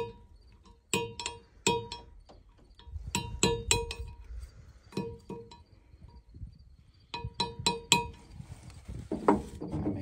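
Hand hammer striking a steel punch to drive a broken shear bolt stub out of the hub of a combine auger drive wheel. Each blow is a sharp metallic clink with a brief ring, and the blows come in quick groups of two to four with short pauses between.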